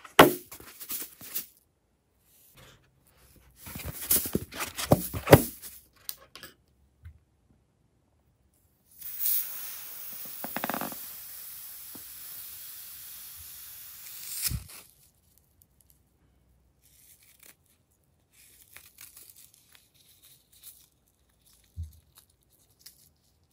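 A glitter-filled latex balloon being handled and cut open with scissors over a bowl of slime: rubber crinkling and rubbing, a steady hiss for about five seconds in the middle that ends in a short knock, then faint ticks as it is emptied.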